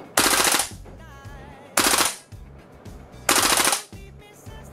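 WE L85A2 airsoft gas blowback rifle firing three short full-auto bursts, each about half a second of rapid shots, roughly a second and a half apart.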